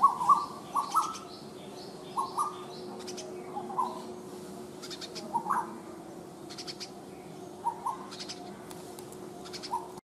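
Asian koels giving short, low calls, singly and in quick pairs, every second or two. Smaller birds chirp faintly higher up, over a faint steady hum.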